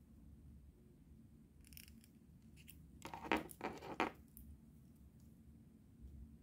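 Small ball chain rattling and clicking against a clear acrylic charm as it is threaded through the charm's hole, with two brief louder rattles about three and four seconds in.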